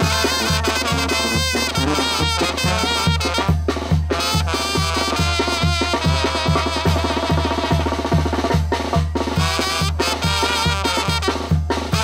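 Tamborazo band playing: clarinets and trumpets carry the melody over a steady, driving beat from the tambora bass drum and snare.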